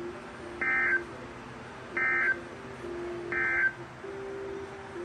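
NOAA Weather Radio Emergency Alert System end-of-message data tones: three short bursts of high, buzzy two-tone digital screech, about 1.3 seconds apart, marking the end of the warning broadcast. A faint low hum and radio hiss run underneath.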